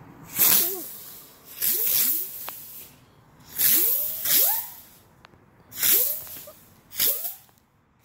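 Old bumblebee fireworks, small flying spinners, going off one after another: about six loud hissing bursts, each with a whine that rises in pitch as the spinner speeds up.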